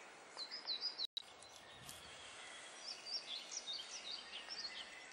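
Small birds chirping in short, high, repeated notes over a faint outdoor background, with a brief dropout about a second in.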